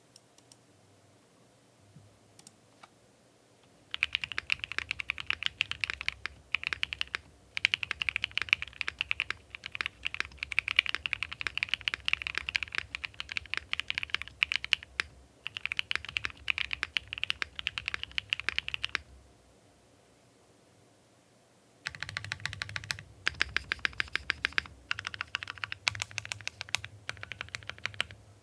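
Typing on a custom 60% mechanical keyboard with Kinetic Labs Moon V2 linear switches, a polycarbonate plate and an aluminum case, in fast runs of keystrokes with a very full, deep sound. The typing starts about four seconds in, stops for a few seconds past the middle, then resumes.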